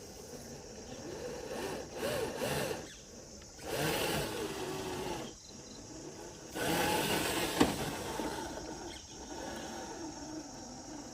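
Scale RC crawler's 550 brushed motor and gear drive whining in three throttle bursts, the pitch rising and falling within each. One sharp knock comes during the third burst.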